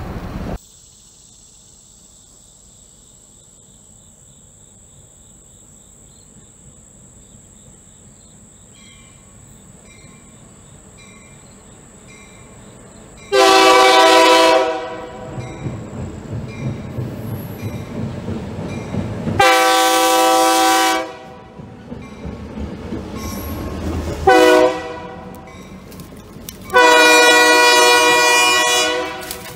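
EMD MP15 switcher locomotive's horn sounding the grade-crossing signal: two long blasts, a short one, then a final long one, signalling the approach to a road crossing.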